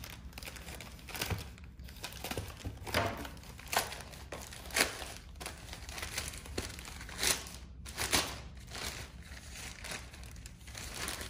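Gift-wrapping paper crinkling and rustling as a wrapped gift is unwrapped by hand, in irregular bursts with a few louder crackles.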